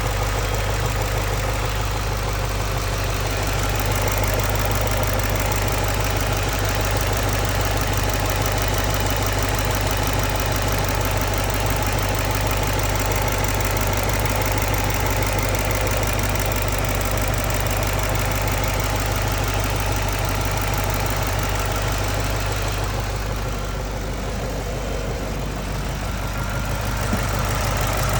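2010 Mustang GT's 4.6-litre three-valve V8 idling steadily, with rapid even fuel-injector ticking and, to the owner's ear, a subtle intermittent tap underneath it. The brighter ticking dulls for a few seconds near the end, then returns.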